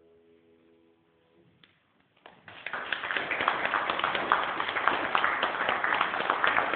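The last held chord of violin and piano fades away, a short hush, then the audience bursts into applause about two seconds in, dense clapping that carries on.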